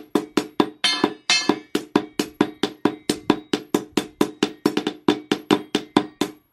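Hammer striking steel on an anvil in quick, even blows, about four to five a second, each with a short metallic ring: forging a golok blade from a chainsaw bar.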